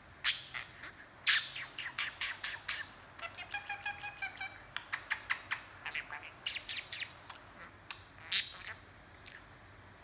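Budgerigar chattering: a quick run of short chirps, clicks and sharp squawks, with a longer whistled note in the middle.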